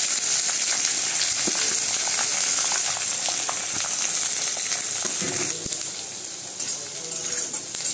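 Freshly added chopped onions sizzling in hot oil in a kadhai, with scattered scrapes and clinks of a steel spatula stirring them. The sizzle is steady and eases a little past halfway.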